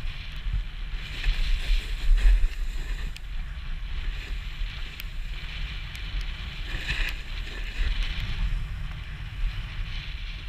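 Wind buffeting the microphone as a steady low rumble, with swells of hiss as edges slide and scrape over packed snow during a downhill ski run, strongest about a second in and again around seven seconds in.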